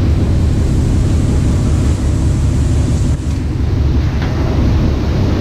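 Steady low drone of a fishing trawler's engine and deck machinery, a loud, unbroken rumble with a constant hum.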